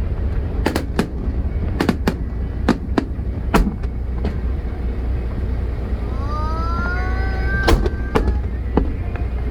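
Fireworks display: a string of sharp bangs from shells bursting, then a rising whistle lasting about two seconds that ends in another bang, over a steady low rumble.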